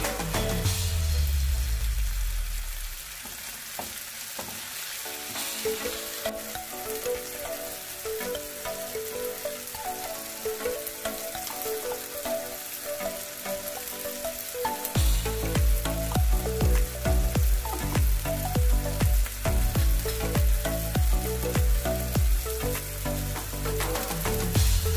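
Food sizzling and crackling as it fries, under background music whose bass beat comes in about halfway through.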